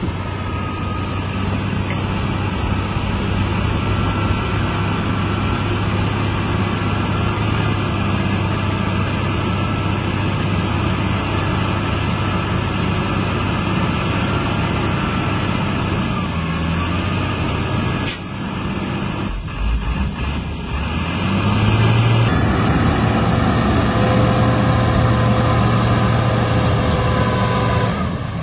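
Heavy diesel dump truck engine running steadily. About two-thirds of the way through, a sharp click, then the engine note rises and gets louder.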